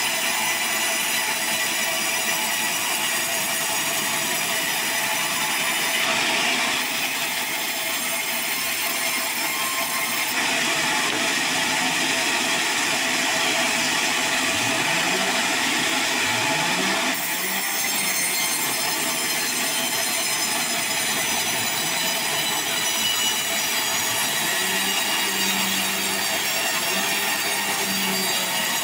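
Band sawmill blade cutting through a sonokeling (Indonesian rosewood) log: a steady, dense sawing noise with a thin high whine from the running blade.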